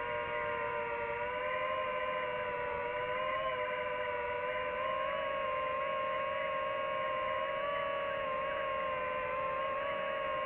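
DJI FPV drone's propellers and motors whining steadily in flight, several close tones that waver slightly in pitch together as the throttle shifts.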